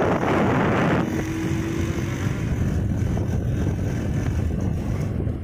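A motorbike in motion: wind rushing over the microphone, over the low rumble of the engine and road. About a second in the wind noise drops away, leaving the steady low rumble.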